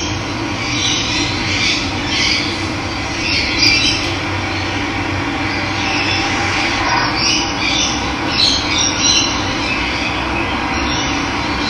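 Steady rush of running water, with birds calling over it in many short, high chirps.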